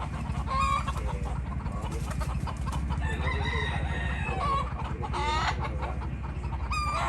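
Chickens roosting in a tree, several hens and roosters clucking and calling at intervals, with a rooster crowing. A steady low hum runs underneath.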